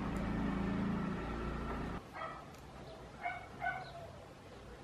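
A steady low hum cuts off suddenly about two seconds in, followed by three short, high-pitched yips of a small dog.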